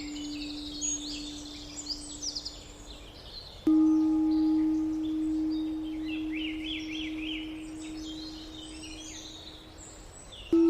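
A singing bowl struck once about a third of the way in, ringing in a long, slowly fading tone as the previous tone dies away, with another strike right at the end. Birds chirp and twitter throughout.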